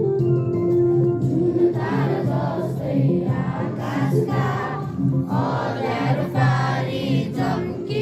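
A group of voices singing a school song together over instrumental accompaniment. The instrument is heard alone at first, and the singing comes in about a second and a half in.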